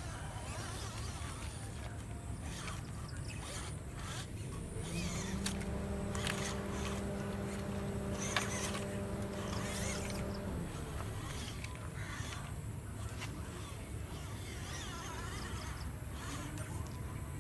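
Small electric motor and gearbox of an MN99s RC crawler whirring as it drives over wet ground, with scattered clicks and scrapes from the wheels. A steady hum joins about five seconds in and stops about halfway through.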